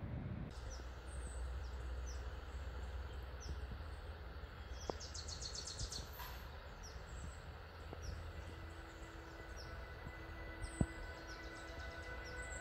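Birds chirping in quiet forest ambience, with a rapid high trill about five to six seconds in.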